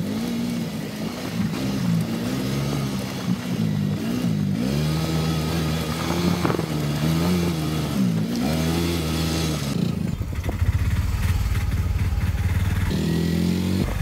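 Engine of a Polaris off-road side-by-side running under way on a dirt track, its pitch rising and falling again and again as the throttle is worked. About ten seconds in the even note gives way to a rougher low rumble.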